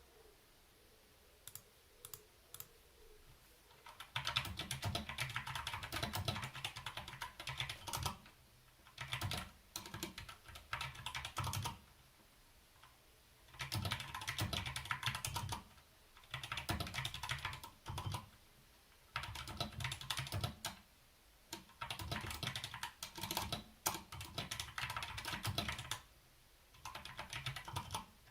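DK61 Pro mechanical keyboard with brown tactile switches being typed on: a few single keystrokes, then fast runs of typing a few seconds long broken by short pauses.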